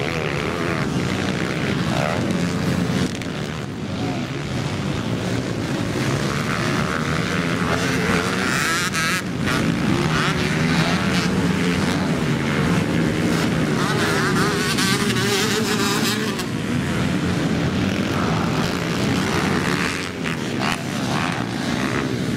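Motocross dirt bike engines racing past, revving up and down continuously as the riders accelerate and back off.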